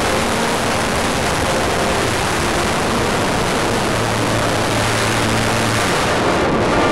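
Steady rush of air over an RC Wot 4 model plane in flight, picked up by its onboard camera, with a faint hum from the model's motor and propeller underneath.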